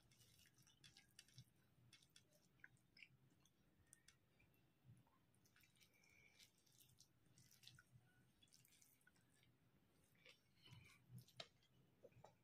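Faint eating sounds: scattered small wet clicks and squishes of chewing and of fingers mixing rice with curry.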